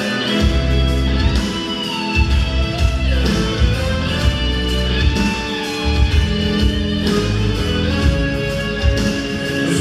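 Instrumental music with a heavy, regular bass line and held melody notes.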